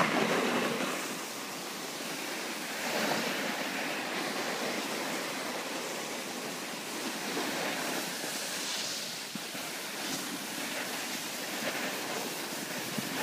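Snowboard sliding and scraping over firm snow, a steady hiss that swells briefly a few times as the board turns, with wind buffeting the microphone.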